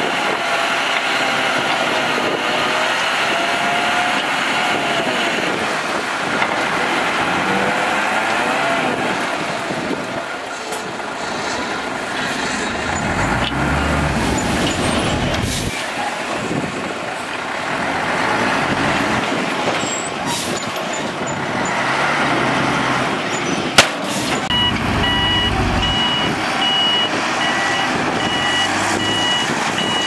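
12-wheel dump truck's diesel engine running while the raised tipper bed dumps a load of dirt. About three-quarters of the way through there is a sharp click, then the truck's reversing alarm starts beeping steadily.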